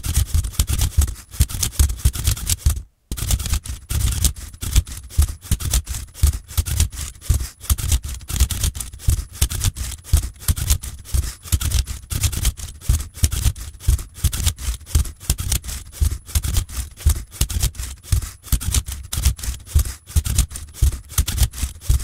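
LEGO Technic Rubik's Cube solving robot at work, its motors and gears turning the platform and flipping the speed cube: a rapid, uneven clatter of clicks and clacks, several a second, with a brief break about three seconds in.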